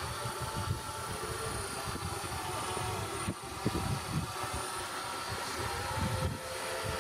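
Small quadcopter drone flying, its motors and propellers giving a steady whine of several held tones over an irregular low rumble.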